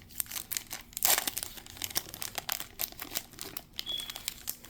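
Foil wrapper of a sports card pack crinkling and tearing as it is pulled open by hand, in irregular crackles, loudest about a second in.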